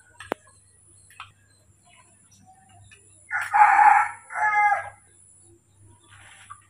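A rooster crowing once, about three seconds in, a rough first part giving way to a drawn-out pitched ending. A single sharp click comes just before, near the start.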